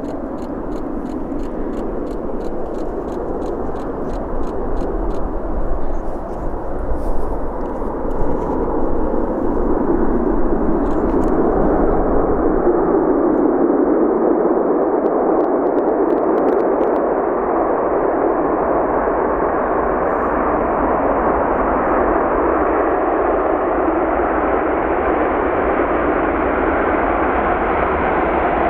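Boeing 747-400 freighter's four jet engines, a steady roar that grows louder over the first twelve seconds or so and then holds as the aircraft comes in to land.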